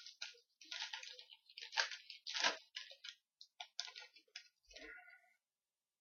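2012 Topps Magic football trading cards being flipped through by hand: a quick, irregular run of short sliding and flicking sounds, a few a second, that stops about five seconds in.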